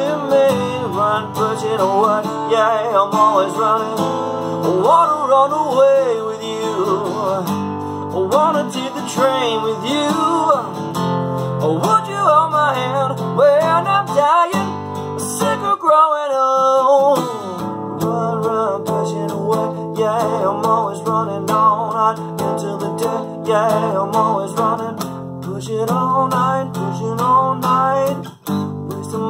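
Acoustic guitar strummed in chords with a man singing over it. About halfway through the guitar drops out for a moment while the voice slides down, then the strumming comes back in.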